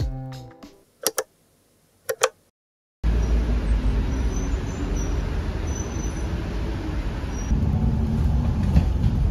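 Music fading out, two short blips, and a brief silence, then about three seconds in a steady rumble of city traffic. Near the end it turns into the drone of a city bus heard from inside its cabin.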